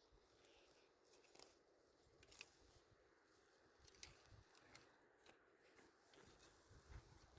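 Near silence, with a few faint scattered clicks and ticks.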